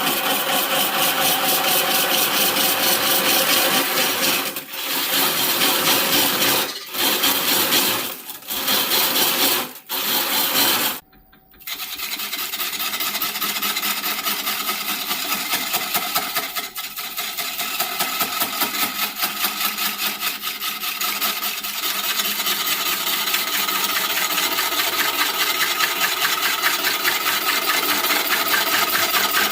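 Abrasive tool working willow wood: a steady rasping scrape with fine, rapid pulsing. It pauses briefly a few times and stops for about half a second a little before the middle, then runs on.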